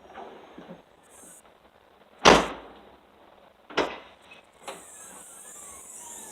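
Car hatch being shut: one loud thump about two seconds in, a lighter knock a second and a half later and a faint third one. A high hiss follows in the last second and a half.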